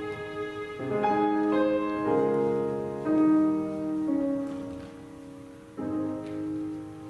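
Violin and upright piano playing the closing bars of a piece: a few held notes, then the piano sounds a last chord about six seconds in and lets it ring away.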